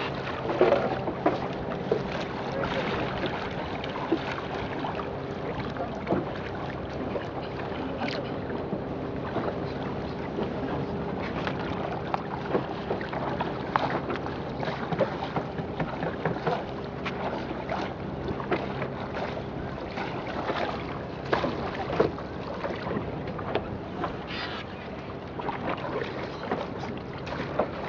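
Small boat moving on the water: irregular splashes and knocks of strokes in the water over a steady rush of water and wind on the microphone, with a faint steady hum underneath.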